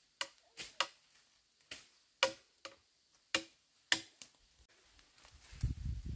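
A series of about eight or nine sharp, irregular knocks or clicks, some with a short ringing tone, spaced unevenly over the first four seconds or so. A low rumble starts near the end.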